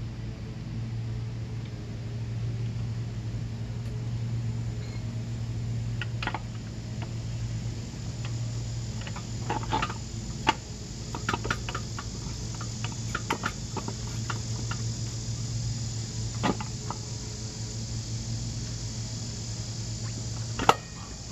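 Scattered light metallic clicks and knocks as a motorcycle's rear wheel is worked back into place on its hub, the sharpest knock near the end. Under them runs a steady drone of insects and a low hum.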